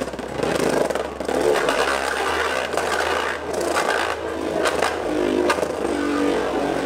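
Beyblade Burst top on a metal jagged Sw driver spinning and skating around a plastic stadium floor, its tip grinding and scraping steadily, with a few sharp clicks. The alloy parts on the sides of the driver also rub the floor, which adds to the noise.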